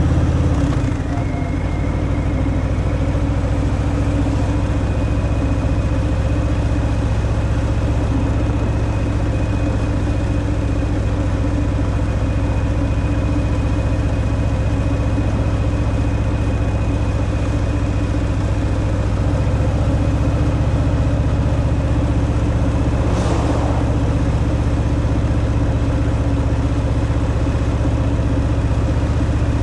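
Harley-Davidson Fat Boy's V-twin running through its stock exhaust while riding, a steady low engine note. The pitch drops briefly about a second in and the engine pulls a little harder later on. A short rushing sound rises and fades about three-quarters of the way through.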